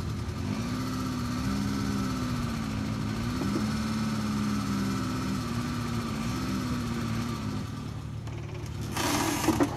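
Suzuki Samurai's engine running at low revs as the 4x4 crawls up a steep ramp under load, its note rising and falling a little. The engine note fades about three-quarters of the way through, and a short burst of noise comes near the end.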